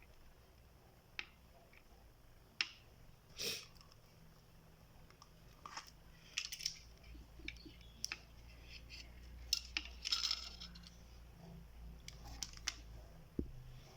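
Small objects being handled by hand: scattered light clicks and taps, with two short rustles about three and ten seconds in.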